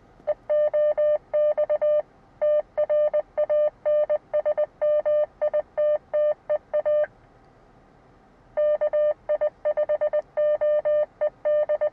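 Hidden fox transmitter's Morse code identification coming through a mobile ham radio's speaker: a steady beep keyed on and off in dots and dashes. It comes in two runs with a pause of about a second and a half between them. It is received at full strength, a sign that the transmitter is close.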